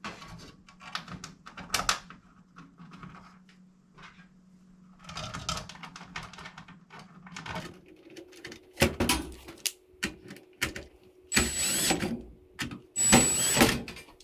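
Clicks and knocks of a screw and plastic parts being handled while the replacement Maytag dryer timer is screwed into the control panel. Near the end come two short, loud motor-like bursts, as a cordless drill drives the timer's mount screws.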